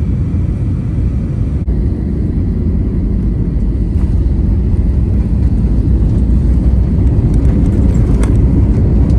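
Inside the cabin of an Airbus A320-family airliner landing: a steady low rumble of engines and rushing air. It breaks off briefly about one and a half seconds in, then runs on as the jet rolls down the runway with its spoilers up, growing louder in the second half.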